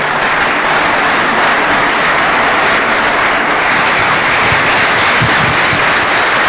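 Audience applauding, a dense steady clapping that keeps up at a constant level.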